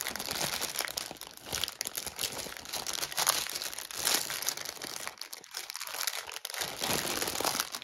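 Plastic bags crinkling as hands rummage through a large clear bag packed with small resealable bags of diamond painting drills, an irregular crackle that eases briefly about five seconds in.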